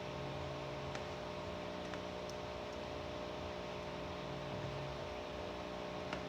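Steady electrical hum with background hiss, and a few faint light clicks.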